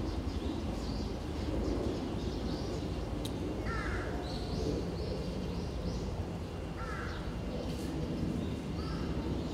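A bird gives three short, harsh calls about three seconds apart over a steady low background rumble, with faint higher chirps and one sharp click.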